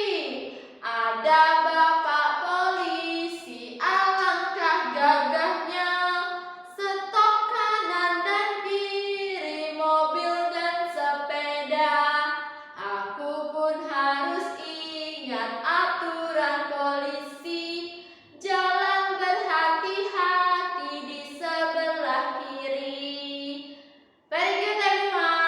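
A high voice singing a children's song in short phrases with held notes and brief pauses between them.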